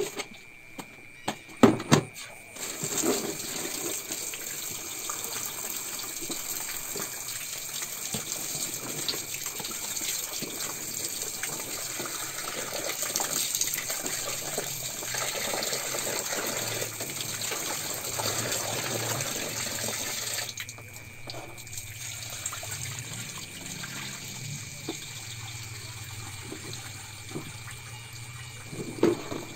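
Tap water running from a hose into an aluminium basin of coconut pieces as they are rinsed by hand, splashing. The flow stops about two-thirds of the way through, leaving a quieter low hum, and there is a knock near the end.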